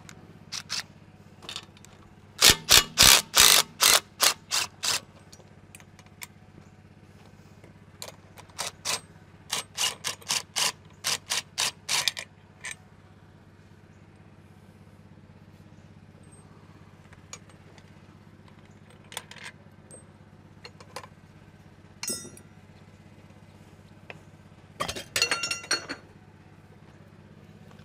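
Cordless impact driver hammering in short bursts as it runs off the bolts of an air brake chamber's clamp band. One long run early on, then a string of short pulses, and another burst near the end, with small metal clicks of parts being handled between them. A steady low hum lies underneath.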